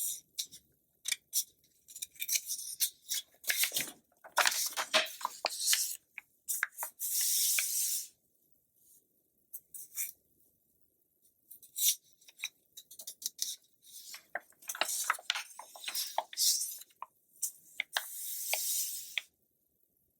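Glossy magazine pages being turned and handled: crisp paper rustles and crinkles with sharp snaps and swishes as each page flips, coming in bursts with short pauses between them.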